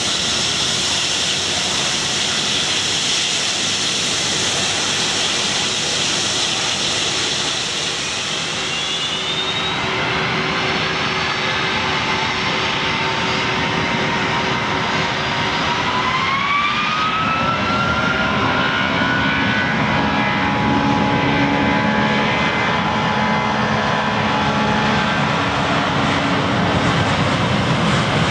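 Boeing 757-200 jet engines: a steady jet hiss at taxi power, then from about ten seconds in the engines spool up with whines rising in pitch, growing louder as takeoff thrust is set.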